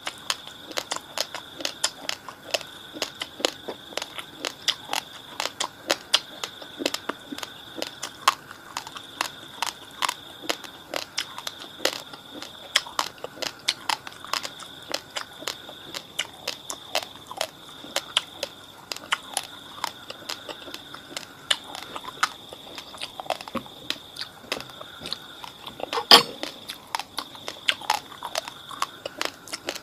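Close-up crunching and chewing of raw, fridge-chilled basmati rice: a fast, irregular run of crisp cracks as the dry grains break between the teeth, with one louder crack near the end. A faint steady high whine runs underneath.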